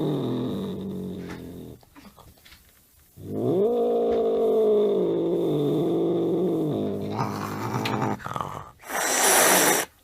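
Angry cat giving long, low, drawn-out growls: one fading out about two seconds in, then after a short pause another long one. A sharp hiss follows near the end.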